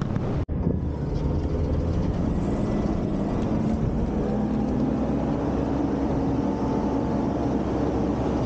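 Front-loader garbage truck's diesel engine and hydraulics running steadily at a raised pitch while the lift arms hold a dumpster over the hopper. The sound cuts out briefly about half a second in.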